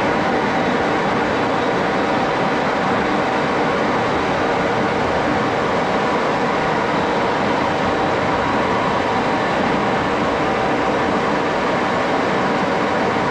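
Metal lathe running steadily with a steel handle spinning in it for free-hand turning: a constant mechanical hum with a few faint steady whining tones over it.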